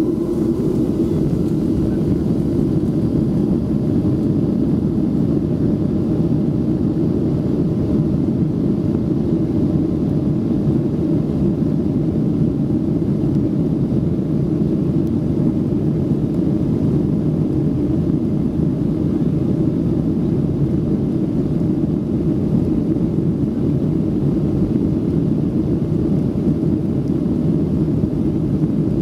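Steady low rumble inside the cabin of a Boeing 737-700 as it taxis, the CFM56-7B engines running at low taxi power.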